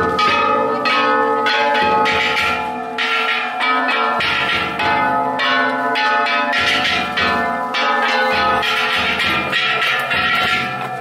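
Ishidori festival float's kane, hand-struck bronze gongs, clanging continuously, with the float's big taiko drum beating underneath.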